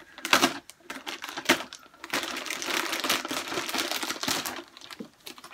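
Clear plastic bag crinkling and rustling as it is pulled open by hand, with a few sharp crackles in the first second and a half.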